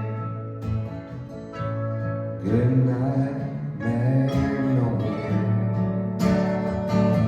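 Live band music: a strummed acoustic guitar with a singing voice, the voice most prominent in the middle.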